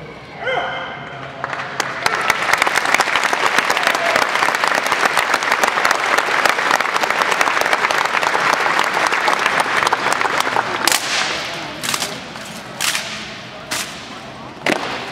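Audience applauding, swelling about two seconds in and dying away about ten seconds in. Then comes a run of sharp cracks, about one a second, from the Marine Corps silent drill platoon striking in unison as it marches.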